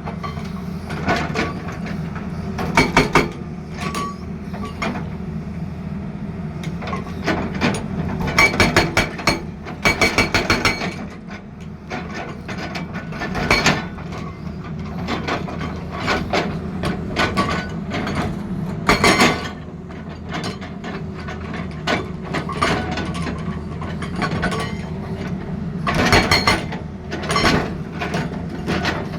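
Hydraulic breaker on an excavator hammering in short bursts of rapid metallic blows, several times, over the excavator's diesel engine running steadily.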